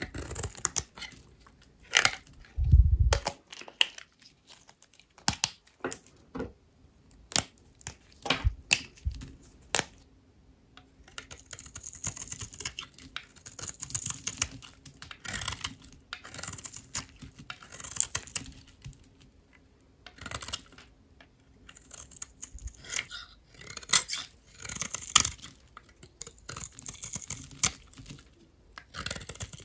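A knife cutting dry soap: sharp cracks and crunches as the blade snaps through the brittle bars, with one heavy low thump about three seconds in. From about ten seconds in, slicing strokes follow one another every two seconds or so, each a crisp scraping crumble.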